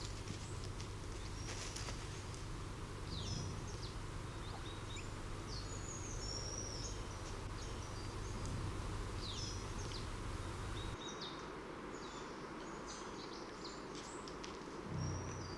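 Outdoor ambience of birds chirping, with many short high calls repeating throughout over a steady hiss. About eleven seconds in, a low background rumble drops away.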